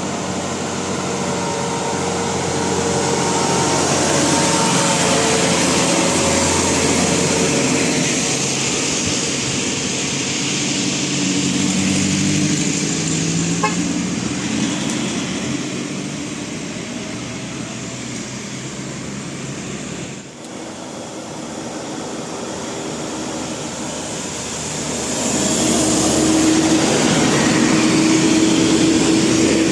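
Indonesian bus 'telolet' multi-tone musical horn sounding held notes in stretches over engine and road noise, loudest near the end.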